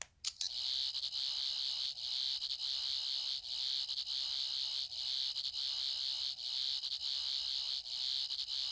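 Character Options Thirteenth Doctor sonic screwdriver toy playing its sonic sound effect through its small speaker. A few button clicks, then about half a second in a steady, high electronic whirr with faint regular dips.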